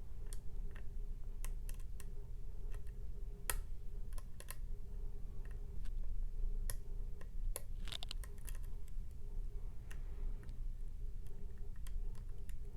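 A metal lock pick tapping and clicking on the pins inside the keyway of a Mul-T-Lock MT5+ dimple lock: irregular light clicks, with a quick cluster about eight seconds in, over a steady low hum.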